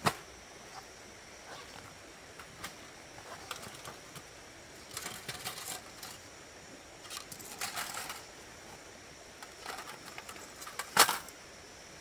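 Irregular light clicks and clatter, like small hard objects being handled, in two bunches near the middle, with a sharp knock near the end and a faint steady high hum underneath.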